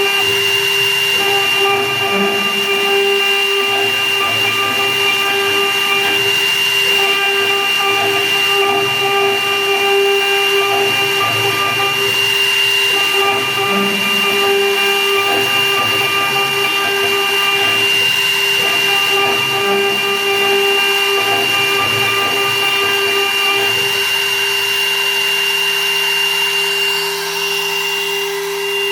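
Small CNC milling machine's spindle whining steadily as it machines a ring, with an uneven cutting noise underneath. The cutting noise drops away about 24 seconds in, leaving mostly the steady spindle tone.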